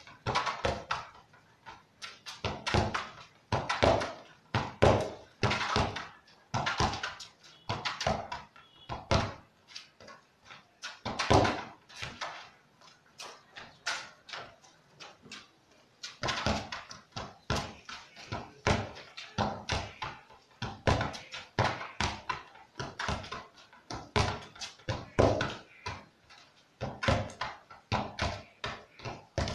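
A football kicked again and again with the instep against a wall and coming back: a run of sharp thuds, about one or two a second, thinning out for a few seconds about halfway through.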